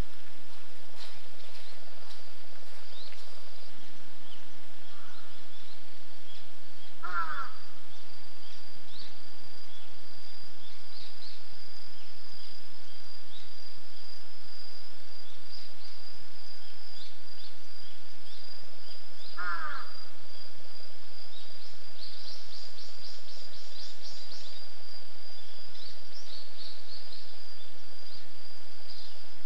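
Birds calling outdoors: small birds give short high chirps throughout, with a quick run of chirps about three-quarters of the way through. Two single crow caws come about twelve seconds apart. A steady thin high tone runs underneath.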